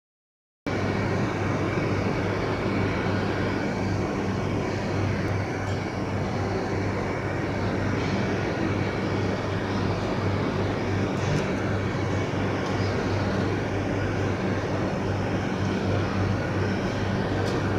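Steady low mechanical drone with a constant hum under an even noise, like a running engine, starting abruptly about half a second in.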